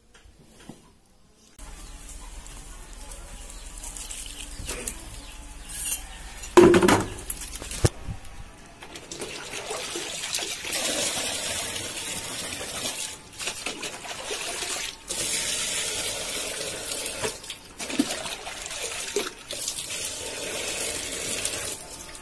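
Water scooped with a plastic bucket from a concrete water tank and poured out, splashing in long runs broken by short pauses, with one loud splash about six seconds in.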